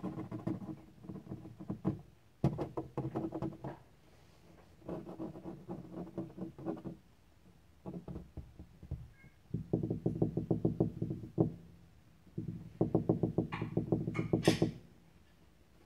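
A kitten close to the microphone making a rapid, rhythmic rasping sound in bursts of one to two seconds with short pauses between them; the loudest burst comes near the end.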